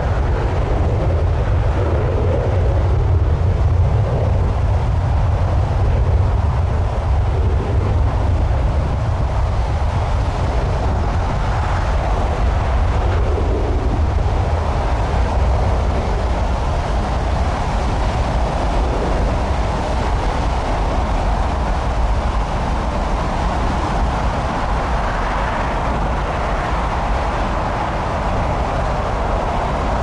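Strong wind buffeting the microphone in a continuous low rumble, with a broader roar above it that grows a little stronger near the end.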